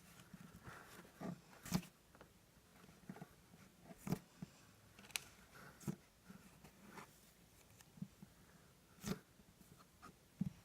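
Butter slime being squished and poked by hand: faint, soft squishes with irregular small pops and clicks about every second, the sharpest about two, four and nine seconds in.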